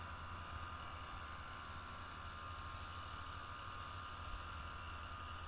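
Engine of a power sprayer running steadily at a distance while blowing sulphur spray mist: a low steady hum under an even hiss.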